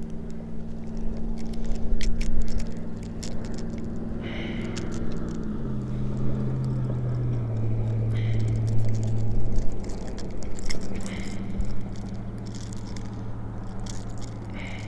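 Small clicks, rattles and scrapes of a jerkbait's treble hooks and a squirming striped bass being handled as the hooks are worked out of its mouth. Under them an engine hums steadily, dropping in pitch about five and a half seconds in.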